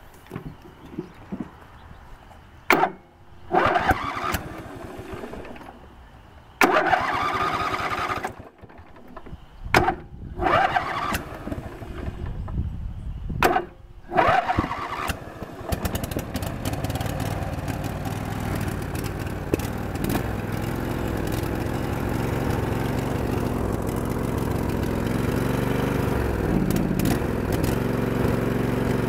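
Craftsman DLT lawn tractor's engine being cranked by its electric starter in several short tries, then catching about fifteen seconds in and running steadily. Near the end its pitch briefly dips and recovers.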